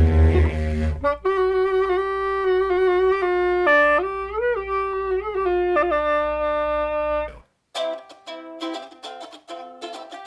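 A deep drone stops about a second in. A wind instrument then plays a short melody for about six seconds, with smooth bends in pitch near the middle. After a brief gap, a plucked string instrument starts picking quick notes.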